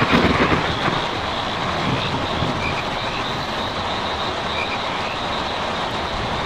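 Rain drumming steadily on a tin roof, a dense continuous patter of drops on the metal sheets.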